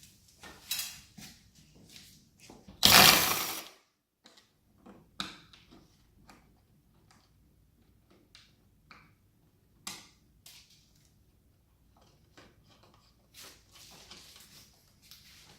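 Screwdriver work on a wall light switch: scattered small clicks and knocks of metal and plastic as the screws are undone, with one loud, noisy scrape about a second long around three seconds in.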